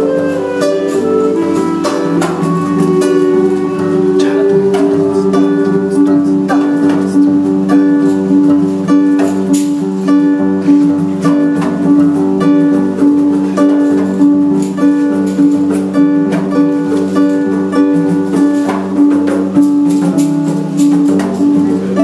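Acoustic music on strummed plucked-string instruments, with a steady rhythmic strum under held notes.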